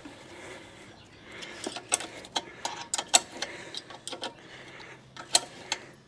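Hand ratchet wrench clicking in short, irregular strokes as a ½-inch bolt is tightened down on a motorcycle front fork; the clicks start about two seconds in.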